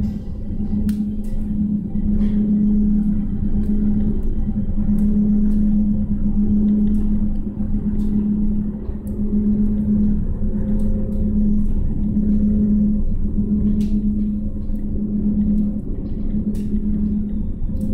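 Unpenji Ropeway cabin running along its cables, heard from inside: a steady low rumble under a strong hum that breaks off briefly every second or two, with occasional faint clicks.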